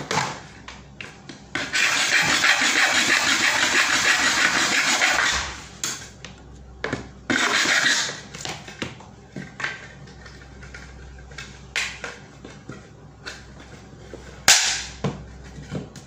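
Hand file rasping against the edge of a cut-out in a plastic electrical enclosure: one long stroke-run of several seconds, then a shorter one. After it come scattered clicks and knocks of the box and tools on the desk, with one loud sharp click near the end.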